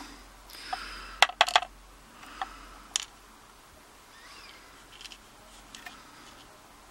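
Pin tumbler pins and springs dropping out of a gutted euro cylinder lock onto a hard surface: a quick run of light metallic clicks about a second in, then a few scattered, fainter ones.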